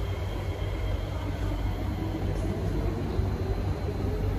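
Steady low hum inside a Kawasaki-CSR Sifang C151A metro car standing at a platform with its doors open. The car's onboard equipment and ventilation keep running while the train waits.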